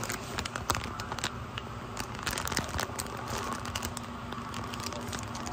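Light rustling and crinkling with scattered small clicks, and a steady low hum that comes in about three and a half seconds in.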